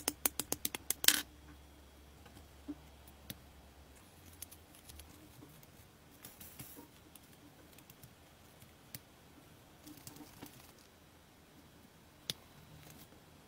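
Side cutters snipping a model engine part off its kit sprue: a quick run of sharp clicks in the first second, the last one the loudest. Scattered faint clicks and rustles follow as the small parts are handled.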